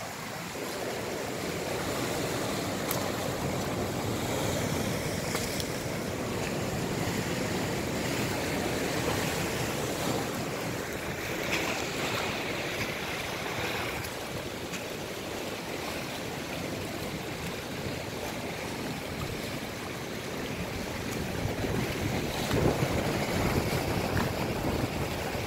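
Sea water washing and sloshing steadily, with wind buffeting the microphone; it gets a little louder near the end.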